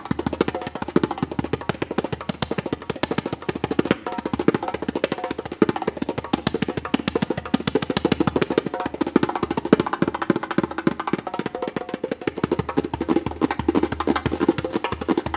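Solo djembe played with bare hands in a fast, unbroken run of strokes.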